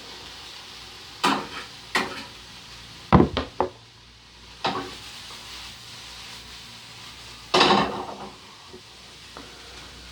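Vegetables sizzling quietly in a frying pan for a stir fry, broken by several sharp knocks and clatters of kitchen utensils and pans, the loudest a longer clatter about two-thirds of the way in.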